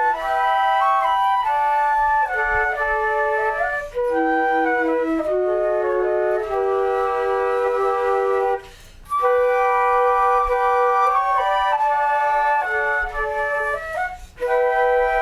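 Flutes playing a slow melody in several parts at once, in held notes, with a short pause about nine seconds in.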